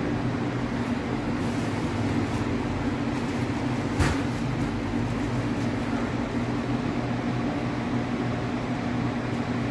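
Steady low mechanical hum, with one sharp click about four seconds in.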